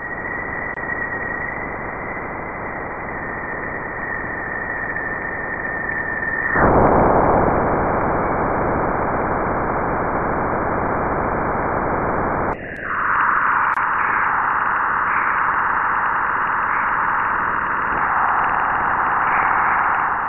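Spacecraft recording of Jupiter's radio emissions converted into audio: a static-like hiss with a steady high whistle for about the first third, which stops abruptly. About two-thirds of the way through it shifts to a brighter, louder hiss.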